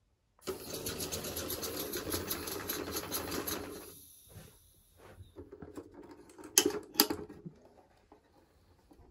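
Lego pneumatic flat-four engine running on compressed air, a rapid, even clatter of its valves and pistons as the half-track drives, fading out about four seconds in. Later come two sharp, loud clicks about half a second apart, the metal latches of a wooden box being flipped open.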